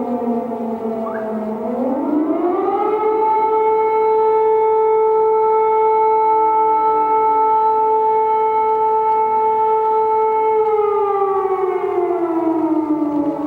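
Civil defense siren wailing: its pitch sits low, climbs steeply about two seconds in, holds steady for several seconds, then slowly falls again near the end.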